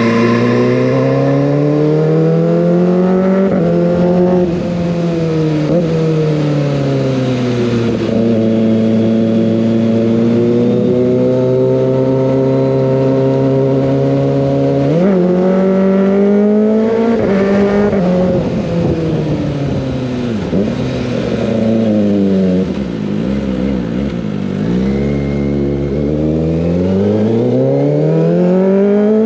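Kawasaki ZX-25R's 250 cc inline-four running through an Over Racing GP-RS full-system aftermarket exhaust while being ridden, revs repeatedly rising and falling through the gears, with a sharp rise about halfway through and revs dropping low for a few seconds before climbing again near the end.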